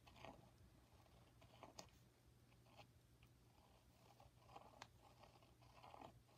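Near silence, with faint scratching of a woodburning pen's tip drawing lines on a dried gourd shell and a few light clicks.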